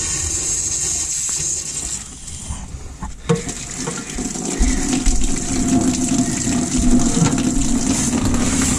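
Water from a garden-hose spray nozzle blasting into the drain-plug hole of a 5.9 Magnum V8 engine block, flushing rust and deposits out of the cooling passages. A hissing spray breaks off about two seconds in, followed by a knock. Water then gushes and splashes steadily.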